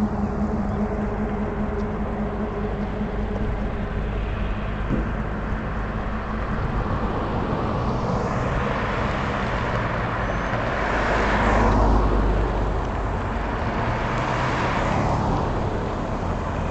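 Road traffic passing on a street: a steady low engine rumble, with one vehicle swelling and fading past around the middle and another near the end.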